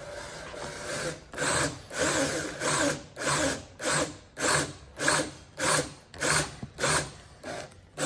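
Cordless drill boring into softwood with a wood bit, clearing the waste of a stopped housing joint. After a quieter first second the drilling swells and fades in regular surges, nearly two a second.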